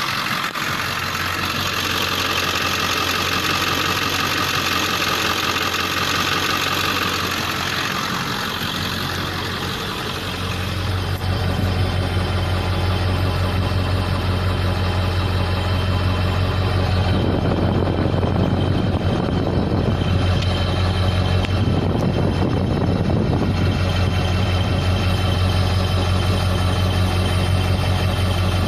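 Ford 7.3 Powerstroke V8 turbo diesel running, with a high turbo whistle over the first several seconds that fades by about nine seconds in, after which the engine's low, steady idle dominates. The whistle is the sign of a boost leak, air escaping from the turbo.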